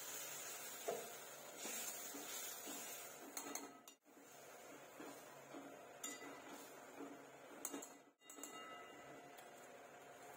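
Steel spatula scraping and lightly clinking against a metal kadai and a steel bowl as mustard paste and then fried fish pieces are added to the pan, a few soft clinks over a faint hiss.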